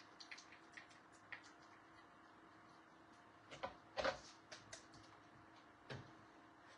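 Scattered light clicks and taps of small craft supplies being handled, with the loudest knock about four seconds in, over a faint steady hum.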